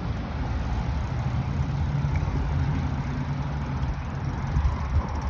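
Road traffic on a street, a steady low rumble with no distinct events.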